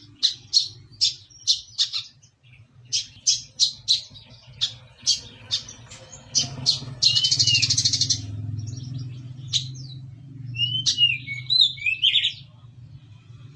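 Brown-throated sunbird (kolibri kelapa) singing in rapid, sparrow-like bursts: a run of short sharp chirps, a dense buzzy trill lasting about a second, then a few curved whistled notes near the end.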